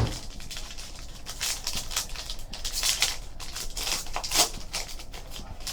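Packaging of a trading-card hobby box being handled and opened: irregular crinkling and rustling, with a knock at the start.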